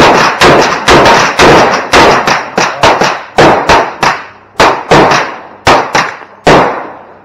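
Handgun fire in a bowling-pin shoot: a fast string of loud shots, roughly two a second, each ringing out with a short echo, ending about a second before the end.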